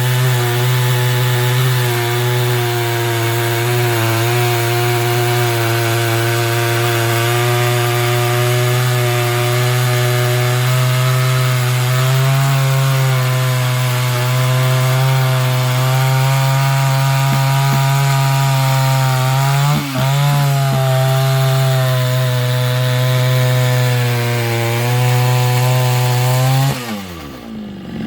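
Dolmar 153 100 cc two-stroke chainsaw running at full throttle through a cut in wood, holding steady revs under load. Its note dips briefly once about two-thirds of the way in, and near the end the revs drop sharply as the throttle is let off.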